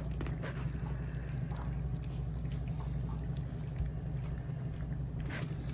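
A steady low hum with scattered faint clicks and taps over it.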